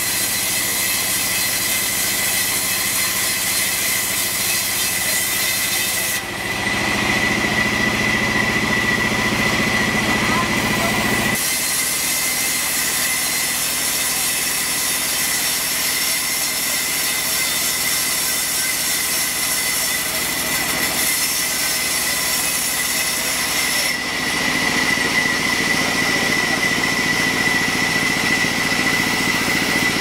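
Sawmill band saw running as its blade rips lengthwise through a log, a steady mechanical din with a high whine throughout. The sound shifts abruptly about six, eleven and twenty-four seconds in.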